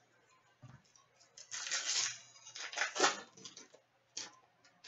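Crinkling and rustling of a trading-card pack and its cards being handled and opened, in several short bursts, followed by a few light clicks near the end.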